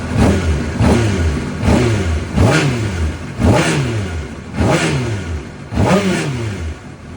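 2005 Honda CBR600RR's inline-four engine idling, then blipped about seven times in quick succession, each rev rising and falling back, before settling toward idle near the end. It is running with a new cam chain and an aftermarket hydraulic cam chain tensioner, a setup the owner says still made the noise he was chasing.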